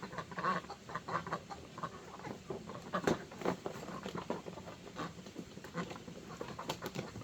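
Chickens and ducks feeding: a busy, irregular patter of pecking and scratching mixed with short clucks and calls, with one sharper click about three seconds in.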